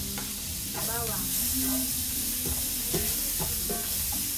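Chopped garlic sizzling in hot melted butter in a frying pan, the sizzle growing louder about a second in as the garlic goes in, with a spatula scraping and tapping the pan.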